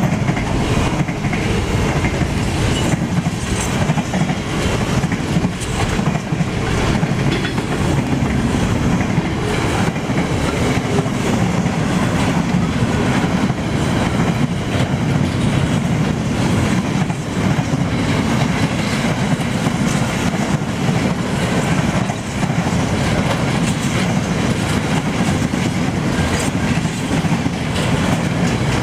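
Wagons of a long intermodal freight train rolling past close by: a steady, loud rumble of steel wheels on the rails, with a constant run of clicks from the wheels passing over the rail joints.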